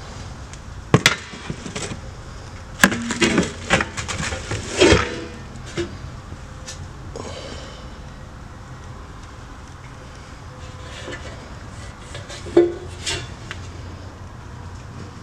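Silver trays and hollowware knocking and clinking against each other as they are picked up and turned over: sharp knocks with brief metallic ringing, one about a second in, a flurry from about three to five seconds in, and another near the end. A steady low hum runs underneath.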